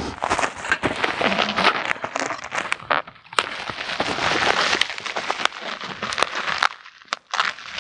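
Bubble wrap and plastic film packaging crinkling and crackling as it is pulled off and cut open, with several sharp clicks or pops in the second half.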